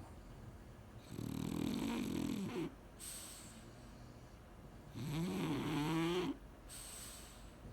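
French bulldog snoring in its sleep: two long, rough snoring breaths about four seconds apart, the second with a wavering pitch, each followed by a softer, breathy exhale.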